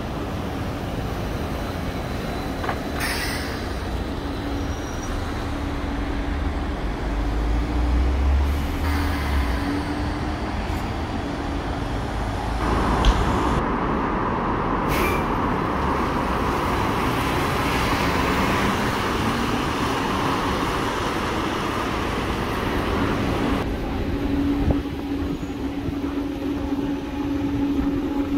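Solaris Trollino 18 articulated trolleybus with Škoda electric drive running in street traffic, a steady electric hum over road noise, with a few sharp clicks.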